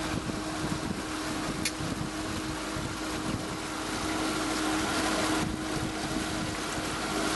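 Suzuki outboard motor running steadily, pushing a small boat through calm water, with the wake churning behind the stern. A steady low hum sits under the water and motor noise.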